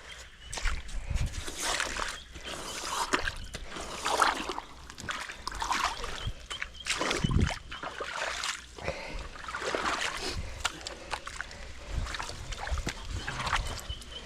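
Muddy puddle water splashing and sloshing in repeated irregular bursts as it is kicked and pushed out of a road hole.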